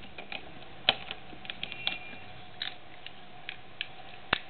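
Plastic Lego bricks clicking and clattering as they are handled and pressed together: a scatter of small clicks, with sharper snaps about a second in and near the end, over a faint steady hum.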